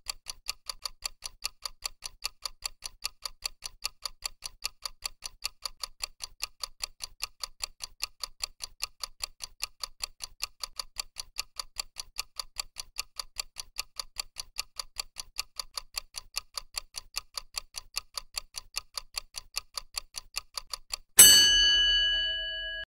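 Clock-ticking sound effect for a countdown timer: quick, even ticks, several a second, with alternate ticks louder in a tick-tock pattern. As the timer reaches zero near the end, a single loud bell-like ding rings out and fades.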